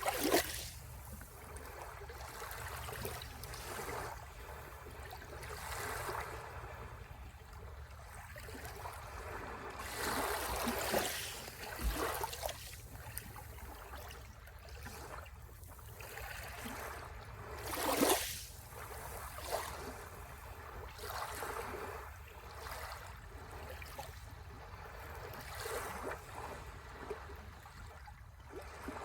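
Sea waves breaking and washing up the shore, the surf swelling and fading every few seconds, with the biggest surge about two-thirds of the way through, over a steady low rumble.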